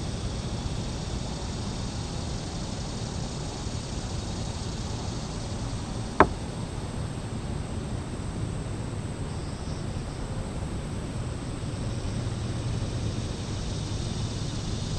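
Steady low rumble of wind on the microphone, with one sharp click about six seconds in.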